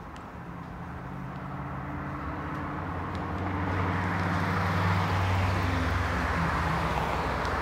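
A car drives past on the street, its engine hum and tyre noise on the asphalt growing steadily louder over the first few seconds and staying loud to the end.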